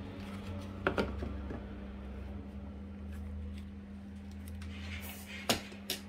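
Hard plastic clicks and knocks as the Bosch EasyVac 3 vacuum's nozzles are pushed onto and handled at the end of its hose. There are two clicks about a second in and two sharper knocks near the end, over a steady low hum. The vacuum itself is not running.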